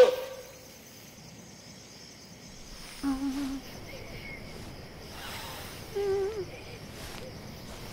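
Quiet background ambience with a faint steady hiss, broken by two short warbling calls, a lower one about three seconds in and a higher one about six seconds in.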